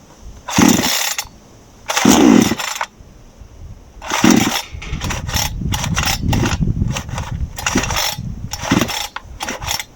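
ECO two-stroke petrol chainsaw being pull-started: the recoil starter cord is yanked three times, then worked in a quicker run of pulls, the engine turning over without catching. The saw will not start.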